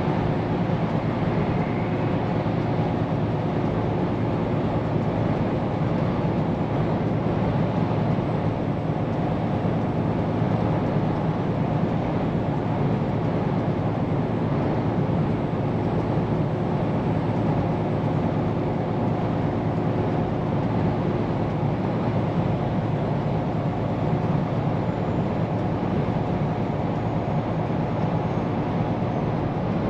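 Scania P410 car-carrier truck on the move: the engine runs at a steady note under an even rush of road and tyre noise, with no change in speed or gear.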